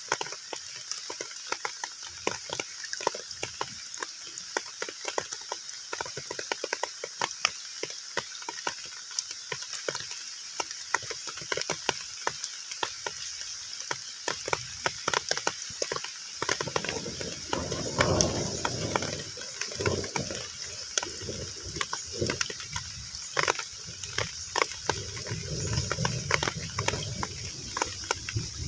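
Heavy rain falling on a pond's surface: a steady hiss made up of many separate drop splashes and patters. About halfway through, a lower sound swells in and comes and goes.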